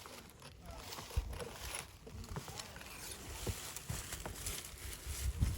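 Irregular light clicks and knocks of small parts and tools being handled while an Autococker paintball marker's pneumatic ram is taken apart by hand.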